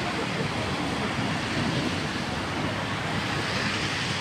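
Steady hiss of heavy rain mixed with traffic on a waterlogged road, tyres swishing through standing water.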